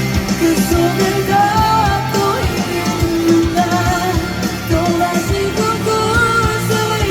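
Live band music in a pop-rock style, with a steady drum beat, guitar and a wavering melodic line.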